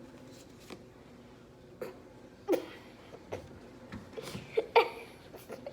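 Playing cards being handled and handed over: a few scattered soft clicks and flicks, with a couple of short breathy vocal sounds.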